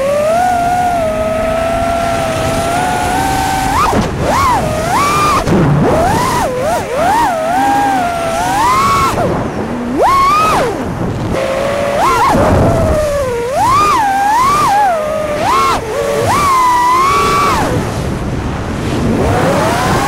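5-inch FPV quadcopter's brushless motors (T-motor Velox 2550kv on 4S) and propellers whining, heard from a camera mounted on the quad. The pitch swings sharply up and down every second or so as the throttle is punched and eased, over a rushing hiss of air.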